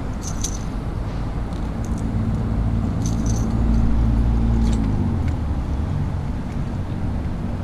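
A road vehicle's engine running as it passes, growing louder for a few seconds in the middle and then fading. A few light clicks sound over it.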